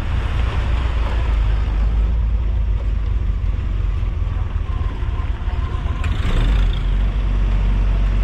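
Flat-fender Jeep running along a dirt trail: steady engine and driving rumble, with a single knock about six seconds in, after which it is a little louder.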